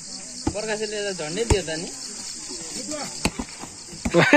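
Children's shouts and calls during a hand-hit ball game, with a few sharp slaps of hands striking the ball, over a steady high buzz of insects. A louder burst of rapid cries comes near the end.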